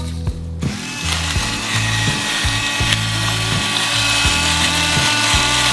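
Electric pepper mill grinding black pepper: its small motor whirs and grinds steadily, starting about half a second in.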